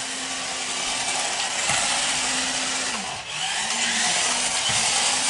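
Small electric motors of remote-control toy bumper cars whining as they drive, the pitch dipping and rising a few times as they speed up and slow down.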